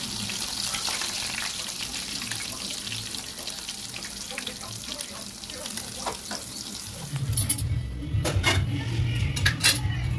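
Floured chicken pieces frying in a pan of hot oil: a steady sizzle, with a fork scraping as the pieces are turned. About seven seconds in it cuts to a low hum with sharp clicks and clinks.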